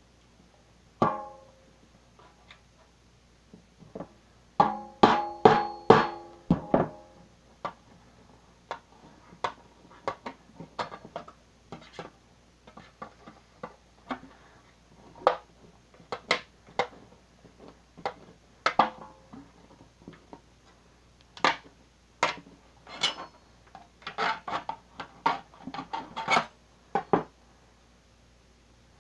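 A knife blade being struck again and again to drive it through the thin sheet metal of a cookie tin: irregular sharp metallic knocks, with a fast loud run about five to seven seconds in where the tin rings briefly, and another quick run near the end.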